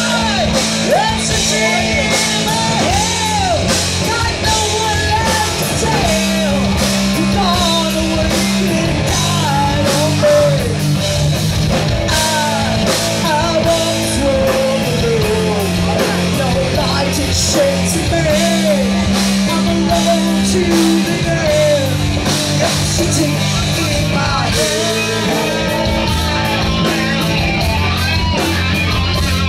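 A metal band playing loud and live: electric guitars and drums, with a singer's voice over them.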